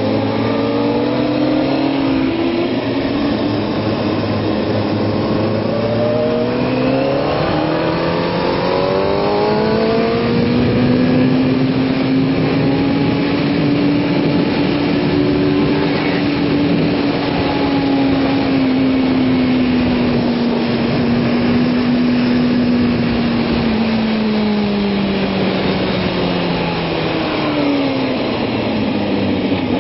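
Kawasaki ZX-6R's inline-four engine held in third gear, its pitch climbing steadily for about ten seconds as it accelerates, holding nearly level for a long stretch, then falling away before picking up again near the end. Heavy wind rush runs under it throughout.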